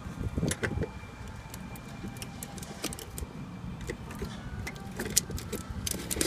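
Small clicks and light metallic rattles of a wiring plug and metal parts being handled inside a rooftop HVAC unit's electrical panel, over a low rumble, with a sharper click near the end.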